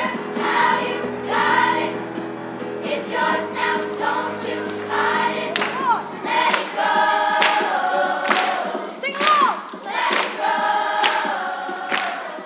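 Children's school chorus singing an upbeat song together to musical accompaniment, with steady low notes under the voices in the first half and a regular beat in the second.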